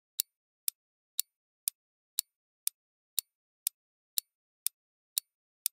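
Countdown-timer ticking sound effect: short, evenly spaced ticks, about two a second.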